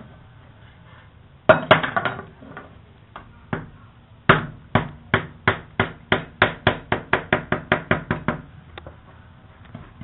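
Hand-held chisel being driven into a small block of wood on a wooden workbench, making sharp knocks. A quick cluster comes about a second and a half in, then a steady run that speeds up to about five knocks a second and stops a little after eight seconds in.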